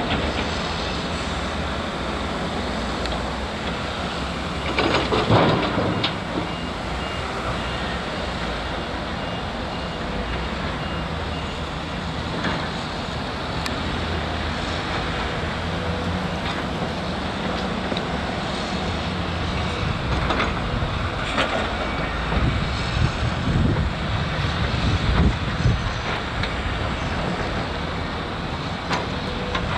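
Heavy diesel earthmoving machinery, an excavator loading a dump truck, running steadily. There is a loud burst of noise about five seconds in, a reversing alarm beeping for several seconds just after it, and louder uneven surges of engine noise past the twenty-second mark.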